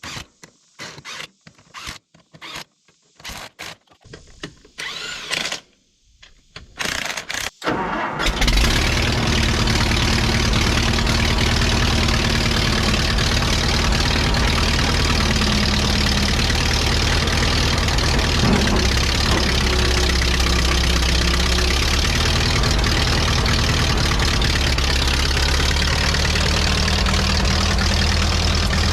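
Allis-Chalmers D17 Series IV tractor engine starting about eight seconds in and then running steadily and loudly, after a few seconds of scattered knocks and handling noises.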